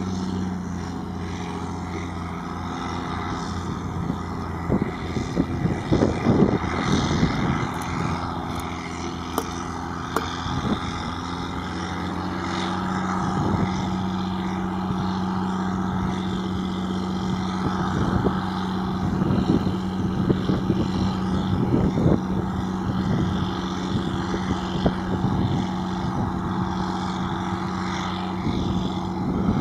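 A heavy diesel engine of harvest machinery running steadily under load, with bursts of knocking and clattering, one group about a fifth of the way in and another past the middle.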